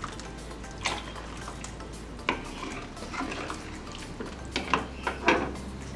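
A ladle stirring thick chile sauce in a cooking pot, knocking against the pot now and then: about half a dozen irregular knocks over a steady low background.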